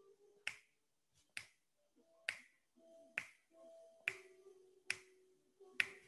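Sharp clicks repeating at an even pace, about one a second, seven in all, over a faint steady hum.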